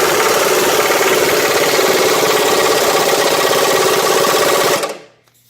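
Impact wrench running hard, hammering a nut tight on an excavator bucket tooth bolt: a loud, fast, continuous rattle that stops shortly before the end.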